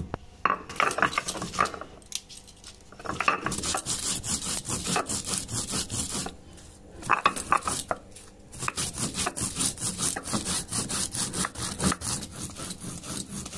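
A stone muller rubbed back and forth on a flat grinding stone (Bengali shil-nora), grinding spices into paste in rasping strokes, with a few short pauses.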